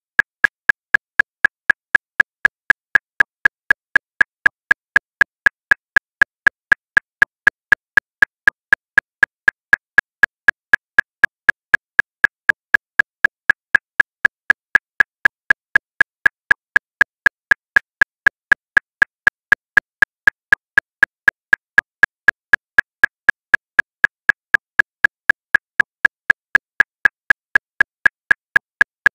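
Metronome clicking at 239 beats per minute: a steady run of sharp, evenly spaced clicks, about four a second.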